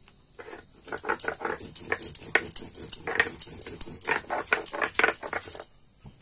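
Stone roller grinding spices such as cumin and dry chilli on a flat sil grinding stone: a rapid run of stone-on-stone grating strokes, about four a second, that starts about half a second in and stops near the end.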